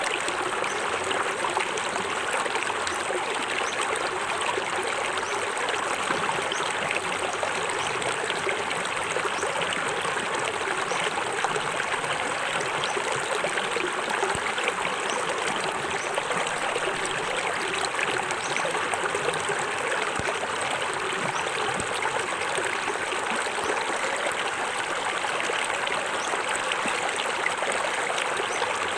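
Small forest waterfall: water splashing and running over rocks in a steady, unbroken rush.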